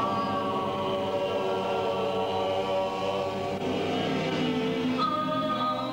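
Choral music: voices singing long held notes that shift to a new chord about five seconds in.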